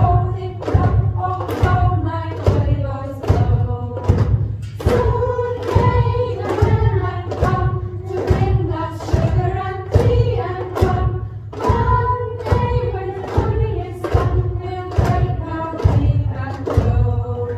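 Children singing a song to a steady thumping beat of about two knocks a second, with a pitched accompaniment; the song stops at the very end.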